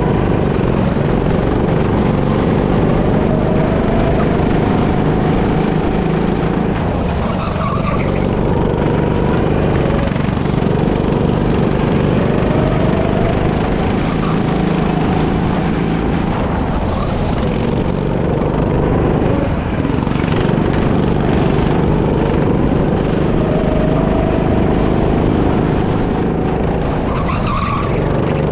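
Onboard sound of a racing go-kart's motor running hard and without a break, its pitch climbing and falling back several times as the kart speeds up and slows for corners.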